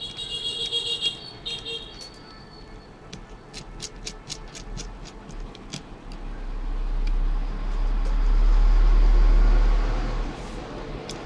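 Light clicks of a small precision screwdriver working the tiny screws in an old BlackBerry phone's housing. In the second half a loud low rumble swells and fades over a few seconds.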